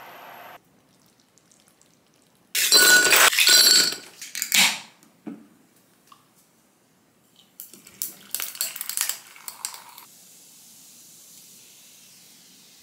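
Welch's grape soda poured from a can into a glass, splashing for about two seconds, then a steady high fizz of bubbles in the glass. Before the pour, about two and a half seconds in, there is a loud noisy burst lasting about two seconds.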